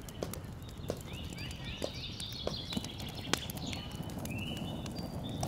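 Wood fire crackling in an open stone hearth, scattered sharp pops and clicks, with birds chirping in the background.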